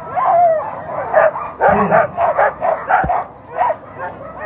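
A harnessed team of Alaskan Husky sled dogs barking and yelping excitedly, several at once in a rapid string of short cries a few a second, eager to run while held at the start line.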